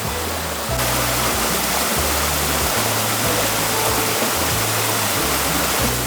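Rushing stream water, which gets louder about a second in, under background music with slow, held bass notes.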